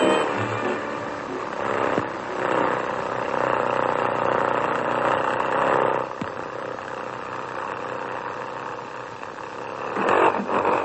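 Cartoon noise effects on an old soundtrack: a dense, clattering mechanical din that swells about two seconds in, settles to a steadier noise, and flares up again near the end.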